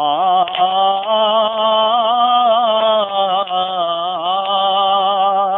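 A man singing a long wordless vocal line with no accompaniment. The voice holds and slides between sustained notes with a wavering vibrato, rising slightly about a second in and dipping a little around three seconds.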